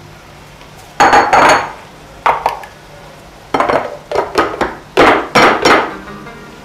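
Plastic food chopper bowl and lid knocking and clattering against a glass bowl as chopped tomato is tapped out of it: a few knocks about a second in, one more shortly after, and a run of repeated knocks in the second half.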